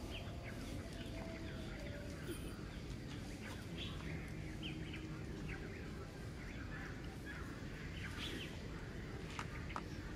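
Small birds chirping, many short quick chirps throughout, over a steady low background rumble.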